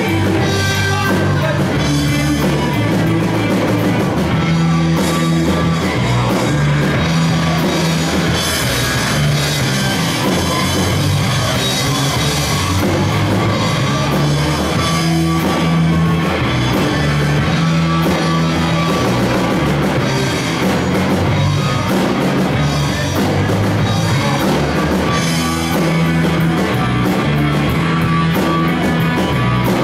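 Live rock band playing loudly through amplifiers: electric guitars, bass guitar and drum kit, with a moving bass line and steady drumming.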